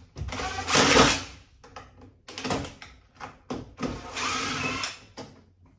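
Power drill/driver turning screws on a cabinet drawer-slide rail: two short runs of the motor about three seconds apart, with a few knocks of handling in between.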